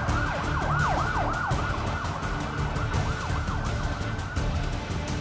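Police siren in a rapid yelp, its pitch dropping and rising a few times a second, growing fainter after about three and a half seconds, over a low rumble.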